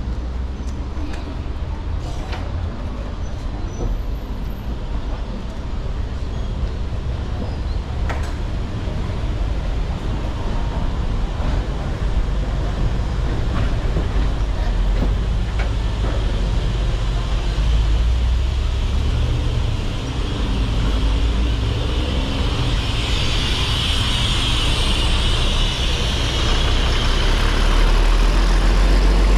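Street traffic noise: motor vehicle engines running and passing, with a heavy low rumble that grows louder in the last few seconds.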